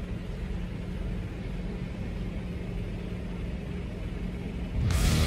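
Steady low outdoor rumble, with no distinct events in it. Near the end, loud rock music with electric guitar cuts in.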